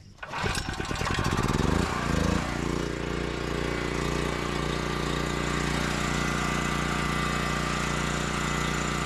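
Portable generator engine starting, revving up over the first couple of seconds and then settling into a steady run at governed speed.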